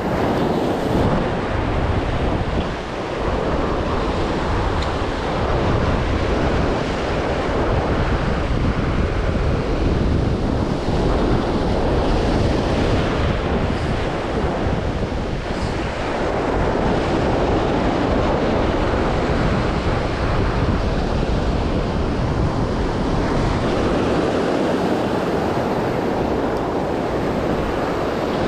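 Rough surf breaking and washing over a rocky shore: a steady rush of white water that swells and eases. Wind buffets the microphone throughout.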